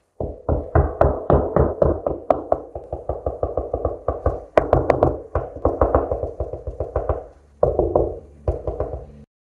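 A fist knocking rapidly on drywall, about four knocks a second, working along the wall to find studs: hollow, booming knocks over the empty cavities between studs and duller ones where a stud sits behind the sheetrock. The knocking pauses briefly near the end, then a few more knocks follow.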